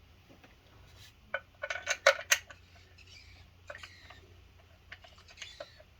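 Metal hand tools clinking: socket and bolts knocking together as they are handled, with a quick cluster of sharp clinks about two seconds in and a few more near the end.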